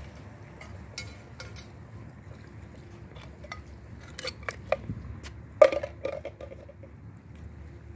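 A plastic bag of dry cat food being handled, giving a scatter of crinkles and clicks. The cluster thickens from about four seconds in, and the loudest crackle comes about five and a half seconds in.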